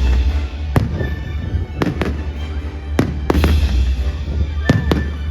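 Fireworks going off: about seven sharp bangs, some in quick pairs, over music with a heavy bass playing on a loudspeaker.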